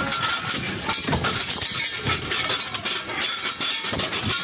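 A burning RV fire close by: a steady rushing noise thick with crackles and pops.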